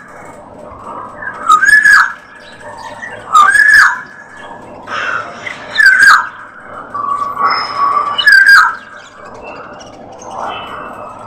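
Young budgerigars calling: loud, arching squawks repeating about every two seconds, with softer chirps in between.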